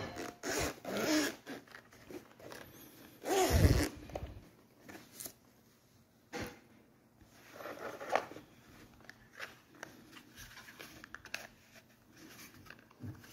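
Zipper of a hard-shell zippered carrying case being pulled open, a rasping run of zipping in the first second or so, then a dull thump a few seconds in as the case is opened. Afterwards, quieter rustling and handling of the case and its contents, with a sharp click about six seconds in.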